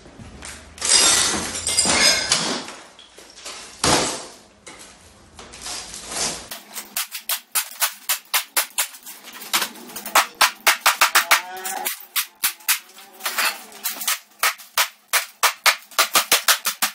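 A flat-screen TV being smashed with a heavy hand tool: crashes of breaking glass and plastic with heavy blows, the loudest about a second in. From about halfway on there is a fast, evenly spaced run of sharp knocks, about four a second.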